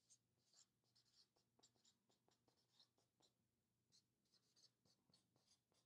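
Faint squeak and scratch of a marker pen writing on a flip-chart paper pad, a string of short strokes as a word is lettered out.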